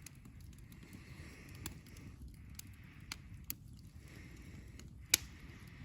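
Campfire burning, with a handful of sharp, separate pops and cracks from the wood over a low, steady rumble; the loudest pop comes about five seconds in.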